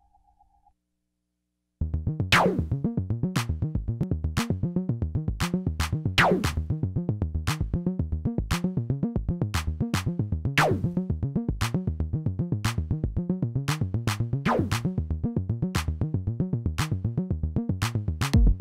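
A hardware synthesizer and drum-machine pattern starts about two seconds in. It is a fast, even pulsing bass sequence with sharp clicks, and a falling zap that sweeps down about every four seconds.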